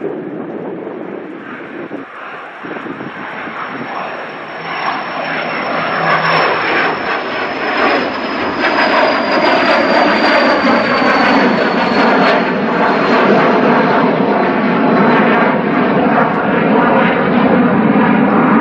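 Cessna 525A CitationJet CJ2's twin Williams FJ44-3A turbofans at takeoff power as the jet climbs out past the listener. A thin high whine slowly falls in pitch, and the overall engine noise grows louder as the jet moves away.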